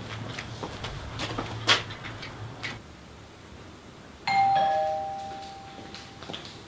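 A few footsteps, then about four seconds in a two-tone doorbell chime rings once: a higher ding followed by a lower dong that fades out over about two seconds.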